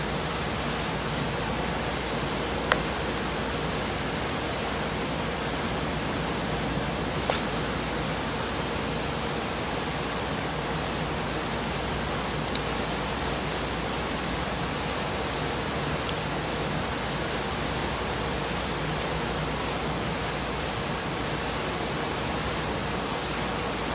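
Steady even hiss, with a few faint clicks scattered through it.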